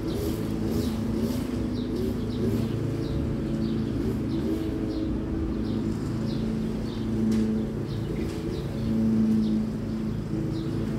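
Outdoor ambience: small birds chirping in short high notes about twice a second over a steady low hum, like distant traffic.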